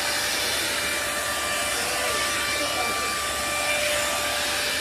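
Hot air brush (hair-dryer brush) running, a steady rush of blown air with a faint motor whine.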